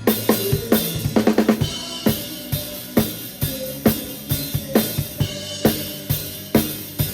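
Acoustic drum kit played in a steady groove of kick, snare and cymbals, with a quick fill of rapid drum strokes about a second in.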